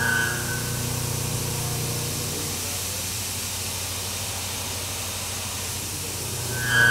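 CNC mill spindle driving a 1/2-inch hard-milling end mill through AR450 steel plate, under a steady hiss of coolant spray and a low spindle hum. A loud, high-pitched chatter squeal at the start fades within about half a second and comes back near the end. The squeal is tool vibration from a surface speed that the machinist thinks is a little aggressive.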